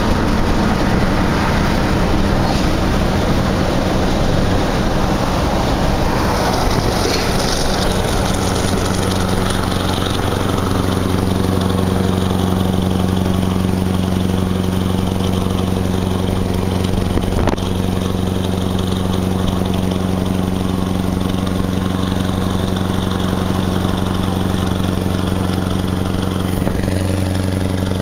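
Motorway wind and tyre noise, joined after several seconds by the steady drone of a Scania 164L 580 V8 truck engine cruising alongside.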